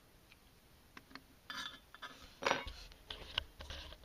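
Small parts and tools being handled and set down on a workbench: a scatter of light clicks and clinks, the loudest about two and a half seconds in.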